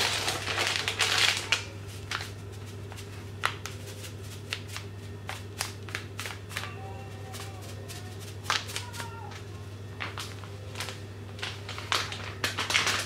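Dry spices being shaken and tapped out of their containers over a bowl of raw oxtail: a scatter of light clicks, taps and rattles, heaviest in the first second or so, over a steady low hum.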